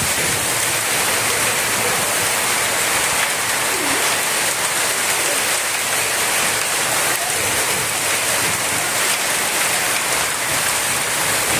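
Very heavy rain pouring down steadily, with hail mixed in.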